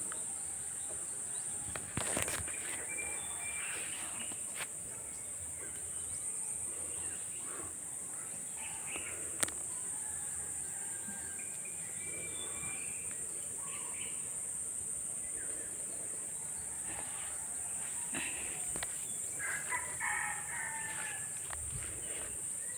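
Rural outdoor ambience: a steady, high-pitched insect drone with scattered faint bird calls, and a few sharp clicks.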